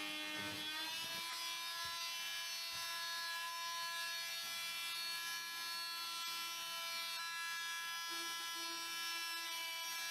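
Corded electric oscillating multi-tool buzzing steadily while trimming the edges of a hole in the ceiling. Its pitch steps up slightly about a second in, then holds, and dips again near the end.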